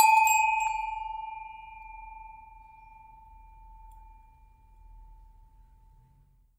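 A small bell struck once, ringing with one clear tone that slowly fades away over about six seconds.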